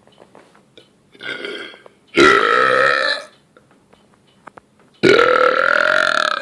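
A man burping loudly three times: a shorter, softer burp about a second in, then two long, loud ones, the last running about a second and a half.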